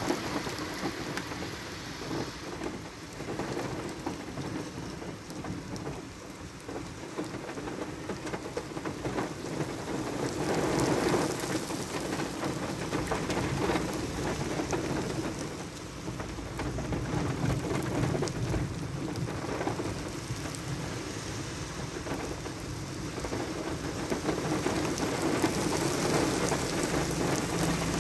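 Heavy monsoon rain pouring steadily onto flooded pavement, its level swelling and easing, with low thunder rumbling at times.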